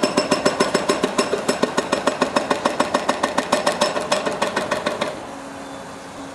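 Excavator-mounted hydraulic breaker pounding in a fast, even rhythm with a metallic ring, stopping abruptly about five seconds in and leaving the machinery's engine running.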